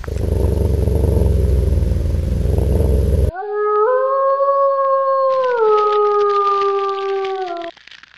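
A low rumble for about three seconds, then one long wolf howl that rises slightly and slides down before it stops near the end. This is a sound effect in an animated intro.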